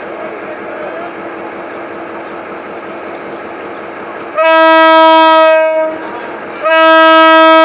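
G22 diesel-electric locomotive running steadily, then sounding its air horn in two long blasts, the first about four seconds in and the second a moment later, much louder than the engine.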